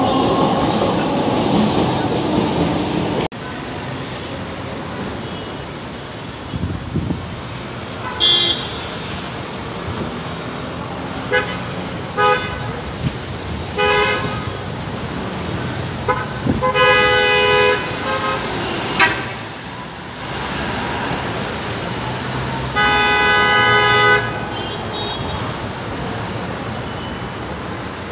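Street traffic noise with vehicle horns honking: several short toots, then two longer honks of about a second each, the last near the end. At the very start a tram rolls past before the noise drops off suddenly.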